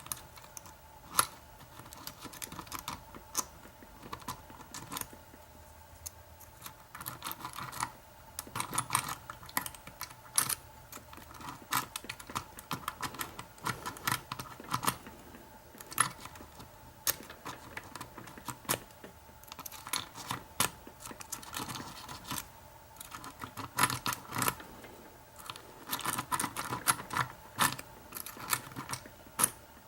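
Cheap metal lock-pick rake raking the pins of a cruciform lock, with a tension tool in place: an irregular run of light metallic clicks and scrapes, coming in quicker flurries now and then.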